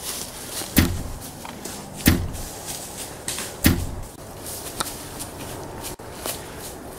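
Three shots from a black AR-style rifle, about a second and a half apart, followed by a few lighter clicks.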